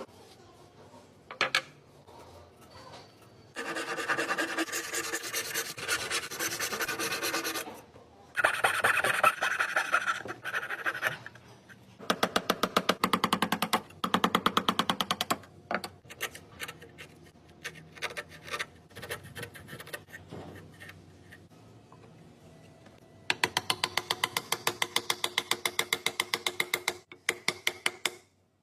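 Wood being worked by hand with a scraping tool in fast back-and-forth strokes, in several bursts of a few seconds each with short pauses between.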